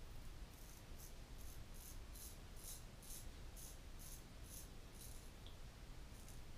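Portland Razor Sprite straight razor scraping stubble off the cheek in a dozen or so short, crisp strokes, about two or three a second.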